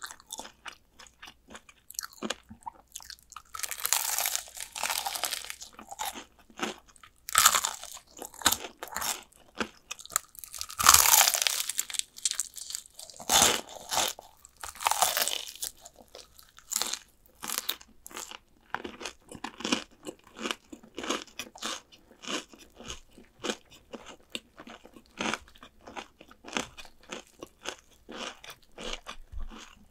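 A person biting into and chewing crispy fried chicken drumsticks, the coating crunching loudly. Several long, loud crunchy bites come in the first half, followed by rapid, steady chewing crunches.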